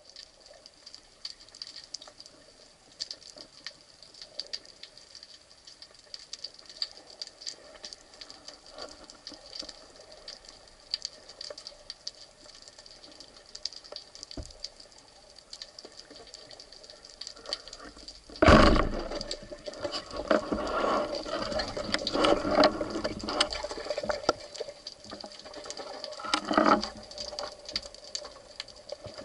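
Underwater recording: a steady faint crackle of many small clicks. About two thirds of the way in, a rubber-band speargun fires with a sudden loud bang. Several seconds of louder irregular rattling and knocking follow.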